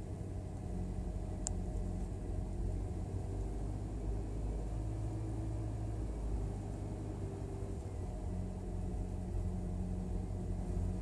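2013 Hyundai Veloster Turbo's turbocharged four-cylinder engine at a cold-start high idle, sputtering with misfires from a faulty ignition coil pack on one cylinder. A brief high click about one and a half seconds in.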